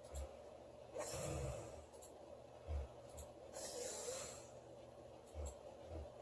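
A girl snoring in her sleep: a rough snoring inhale about a second in, then a long breathy exhale near the middle. A few short low thuds fall between the breaths.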